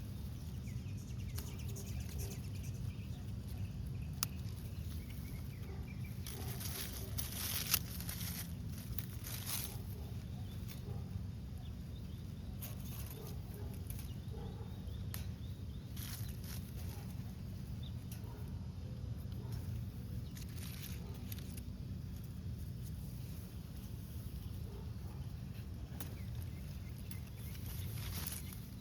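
Outdoor garden ambience: a steady low rumble with scattered brief rustles, busiest in the first third and again about halfway through.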